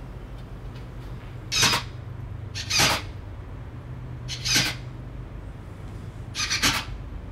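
Cordless drill driving screws into wood in four short bursts, a second or two apart, over a steady low hum.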